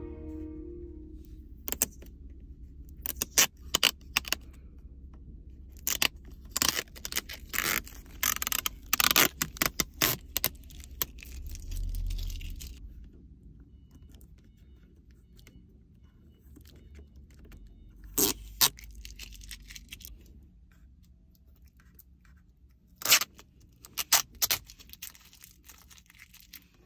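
Protective plastic film being peeled off a new car's glossy gear-selector and console trim: crackling and crinkling in clusters of sharp little rips, with quiet stretches between. A low steady hum sits underneath.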